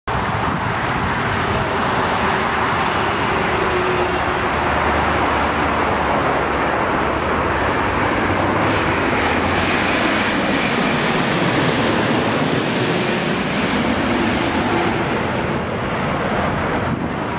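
Boeing 787-8 Dreamliner on final approach passing low overhead, its Rolls-Royce Trent 1000 turbofans making a steady jet rumble. The sound swells a little as the aircraft passes over and eases slightly near the end as it moves away.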